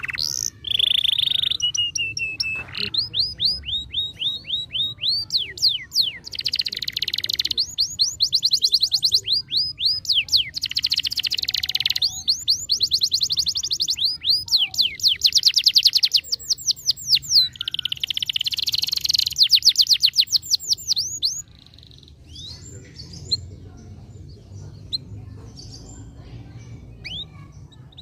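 Domestic canary singing: long rolling trills, each made of rapidly repeated sweeping notes, passing from one trill into the next. The song breaks off about three-quarters of the way through, leaving only faint scattered chirps.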